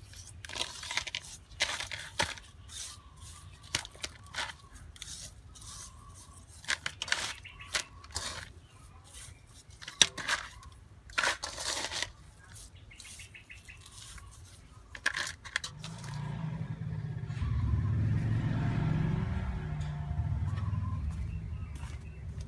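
Hands scrubbing whole fish with coarse salt in an aluminium bowl: irregular scraping and crunching of salt grains and scales against the metal, with occasional sharper knocks. About sixteen seconds in this gives way to a steady low rumble.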